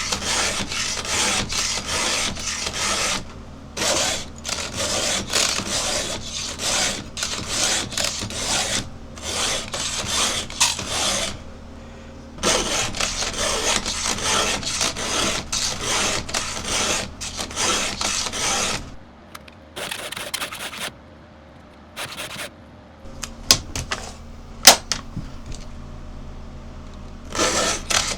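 Round file in a Husqvarna file guide being pushed across the cutters of a 3/8 saw chain, in rasping strokes about twice a second. About two-thirds through, the filing stops for several seconds apart from a few sharp clicks, and it starts again just before the end.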